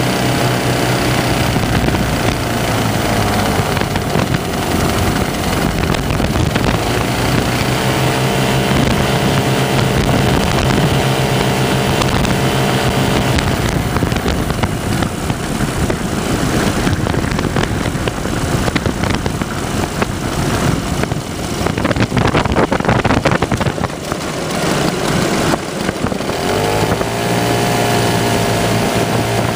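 Twin 9.5 hp Rotax single-cylinder two-stroke engines of a Lazair ultralight, running steadily with their pitch dipping briefly twice. About halfway through they are throttled back and wind rush and a rough rumble take over as the plane touches down on grass, then the engines rise in pitch again near the end.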